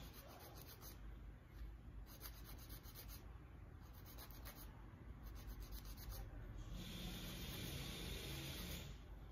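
Hand nail file rubbing back and forth across a toenail in quick, faint strokes.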